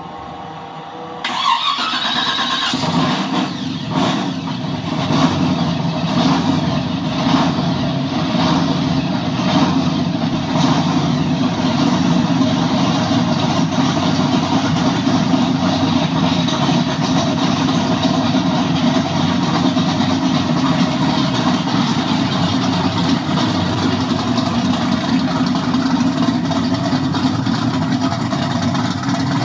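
An engine starts about a second in and runs, pulsing unevenly at first and then settling into a steady run.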